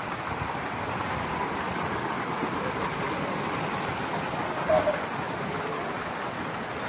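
Steady rushing splash of water from the fountain jets of a splash pool, with a brief voice a little under five seconds in.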